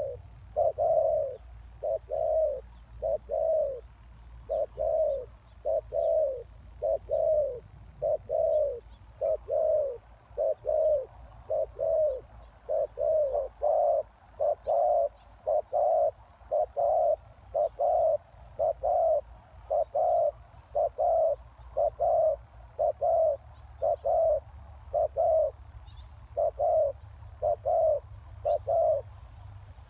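Spotted dove cooing, a long run of low coo notes repeated about once a second. It is the dove's song as used for luring wild doves.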